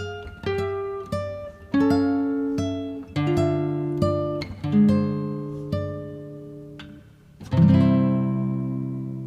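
Acoustic guitar music: single plucked notes and short phrases, ending in a strummed chord that is left to ring out.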